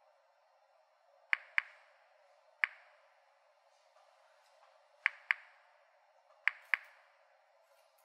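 Series 900 Mini-Monitor Geiger counter clicking at random, irregular intervals: seven sharp clicks, several in close pairs, each one a detected radiation count from the pile of bananas, whose potassium-40 adds to the background.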